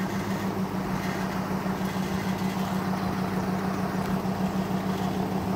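V8 engine of a Nissan pickup truck idling steadily, a low even hum with no crunch or impact.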